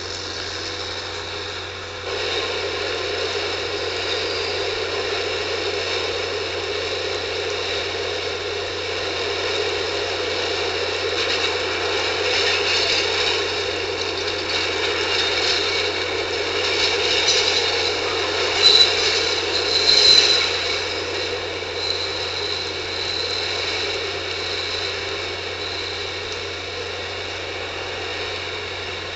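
Subway station noise: a train running with a steady rattle and rumble, with two brief high squeals about two-thirds of the way through.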